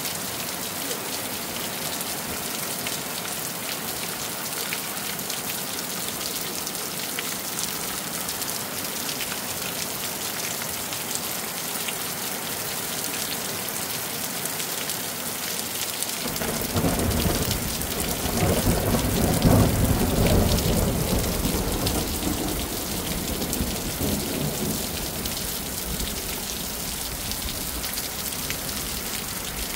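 Steady rain falling on a concrete slab and muddy ground, a constant hiss. About halfway through, a low rumble swells up, peaks a few seconds later and slowly fades.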